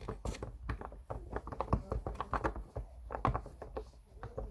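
Silicone pop-it fidget toy being pressed bubble by bubble, a quick run of soft, irregular pops and taps, several a second. This is the side of the toy that pops less clearly.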